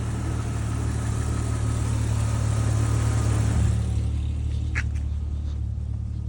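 Car engine idling steadily, with a broader rushing layer over it that eases off about two-thirds of the way through.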